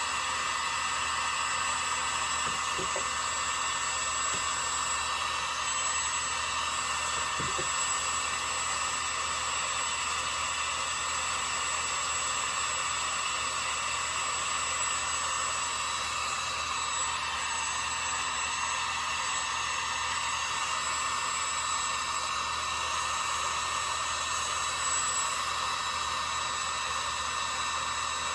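Steady whirring noise of a small motor-driven blower running continuously, with a couple of faint light ticks in the first several seconds.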